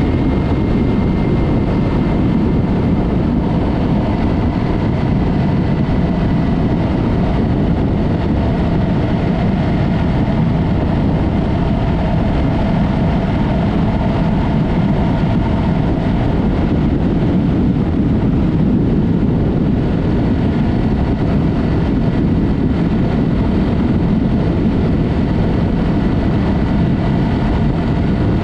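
Yamaha MT-03 motorcycle riding at a steady pace: engine and road noise as one steady low rush, with no revving up or down.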